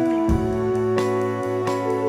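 Instrumental passage of a band's studio song: held chords over a low bass note and a steady beat, with a heavier drum hit about a third of a second in.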